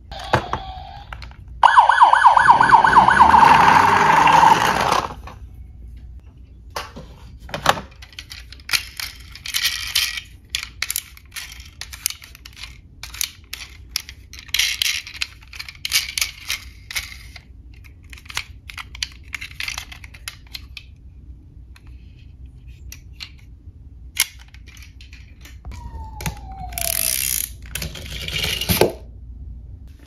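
Electronic siren from a battery-powered toy police car, wavering for about three seconds, then many light clicks and rattles of plastic and diecast toy cars being handled. Near the end a short falling tone and another brief burst of toy sound effect.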